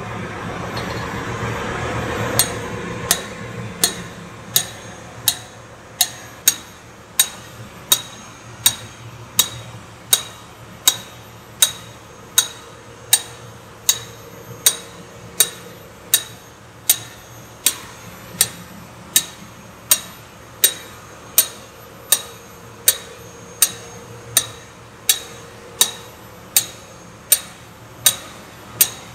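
Hammer blows on a steel driver set on a valve guide in a diesel generator engine's cylinder head, driving the guide: sharp metal-on-metal strikes with a short ring, steady at about one and a half a second. A swelling rush of noise comes first, and the strikes begin about two and a half seconds in.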